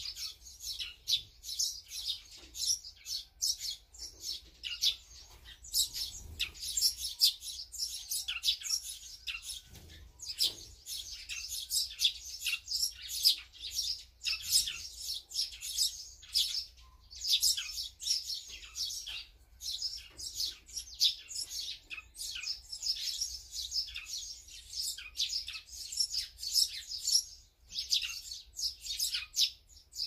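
Small songbirds at a feeder chirping continuously, many short, high chirps overlapping one another in quick succession.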